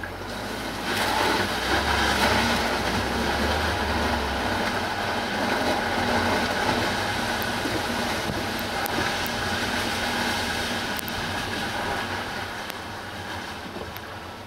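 Road vehicle noise, a rumble of tyres and engine on the road. It swells about a second in and slowly fades away.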